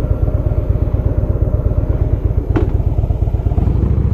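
Harley-Davidson V-twin motorcycle engine running while riding, with an even, rapid exhaust pulse. There is a short click about two and a half seconds in, and the engine note shifts lower about three and a half seconds in.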